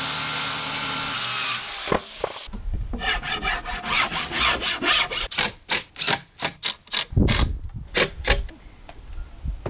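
Corded circular saw cutting through 3/4-inch plywood, its whine falling as it winds down about a second and a half in. After that come rasping, back-and-forth rubbing strokes on the plywood, about four or five a second, and a few knocks.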